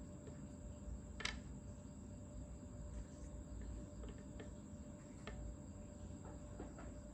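Scattered faint clicks and light taps, with one sharper click about a second in, over a low steady background hum.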